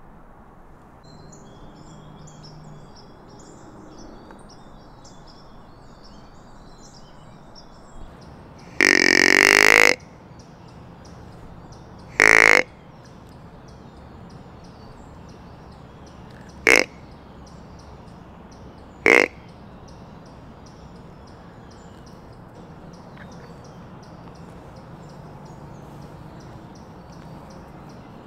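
Deer grunt tube blown four times to imitate a buck's grunt: one long grunt of about a second, then three shorter grunts a few seconds apart. Faint bird chirps run through the first several seconds.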